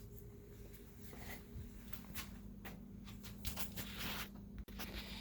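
Faint rustling and handling noises, scattered short scrapes and rubs, over a steady low hum.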